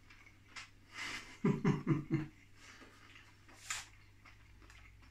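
Quiet mouth sounds of a man eating a sauce-glazed chicken strip: a short low hummed 'mm' about one and a half seconds in, and a breath a little before four seconds.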